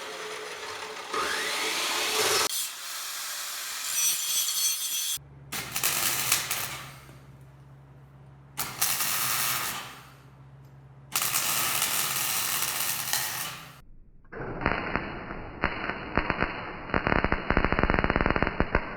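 Power-tool work in several short cut-together clips: bursts of loud, harsh machining noise that start and stop abruptly, one stretch carrying a steady low motor hum underneath.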